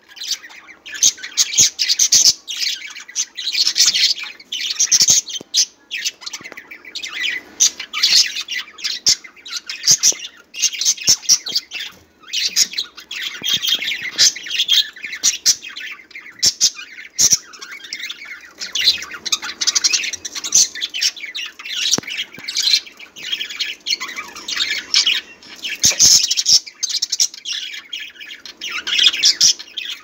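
A flock of budgerigars chattering, a continuous mix of rapid warbling chirps and squawks, dotted with short sharp clicks.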